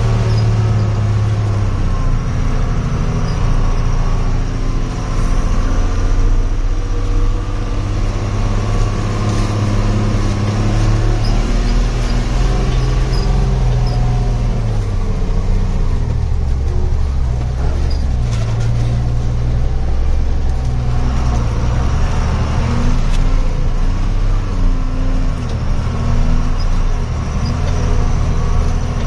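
Truck engine running under way, its low note dropping and rising again as the revs change.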